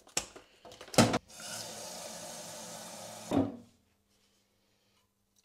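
Knocks of a jug handled at a kitchen sink, then a kitchen tap running into the jug for about two seconds, ending with a clunk. Near silence follows.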